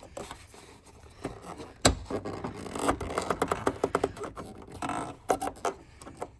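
Hands fitting the plastic access cap back onto a Lexus LS460 headlight housing: scraping, rustling and small clicks, with one sharp knock about two seconds in.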